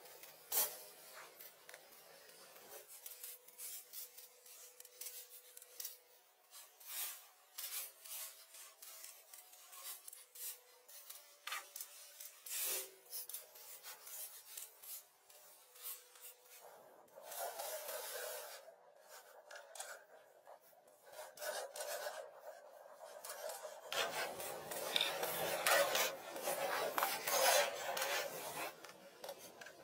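Scattered light taps and knocks, with stretches of rasping, rubbing noise about halfway through and again over the last few seconds.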